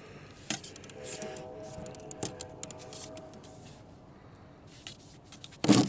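Scattered small clicks and scrapes from handling the shotgun's metal parts during cleaning, with a louder brief rush of noise near the end.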